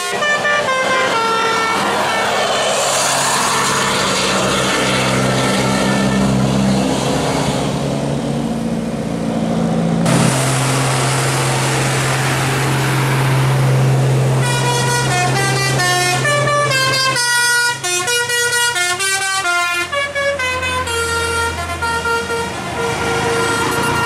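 Multi-tone 'telolet' bus air horns playing quick stepping melodies. In between, a coach's engine and tyre noise swell as it passes, with a steady low engine drone. The horn tunes start up again about midway through and carry on, note after note.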